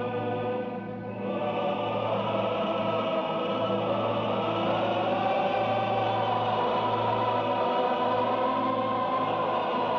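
Choir singing slow, sustained chords over a low held note, thinning briefly about a second in and then swelling fuller.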